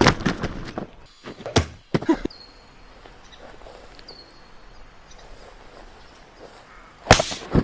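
Thuds of a person's body slamming onto a padded tackle bag, several in the first two seconds, then a quiet stretch of outdoor ambience with a few faint short high whistles, and one loud hit about seven seconds in.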